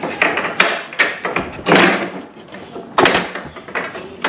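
Knocks, clicks and a scraping rustle of car body parts and brackets being handled and fitted, several sharp impacts with a longer scrape about halfway through.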